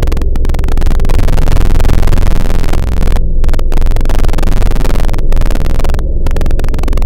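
Loud, distorted electronic noise music: a dense harsh hiss over heavy low bass, its upper range cutting out abruptly for brief moments several times.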